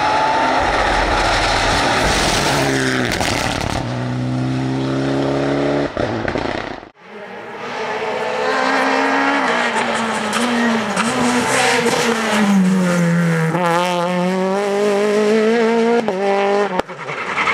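Two rally cars at speed, one after the other. A Mitsubishi Lancer Evolution's engine revs as it comes past and cuts off suddenly about seven seconds in. Then a Peugeot 208 rally car's engine rises and falls in pitch through throttle changes and gear shifts, dropping and climbing again a little past halfway.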